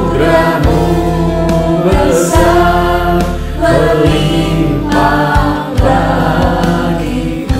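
Mixed choir of men's and women's voices singing an Indonesian-language Christian worship song, sung phrases over sustained instrumental accompaniment.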